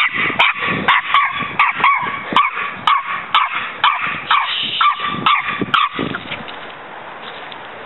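Small West Highland white terrier barking in a rapid series of high, sharp yaps, about two to three a second, stopping about six seconds in.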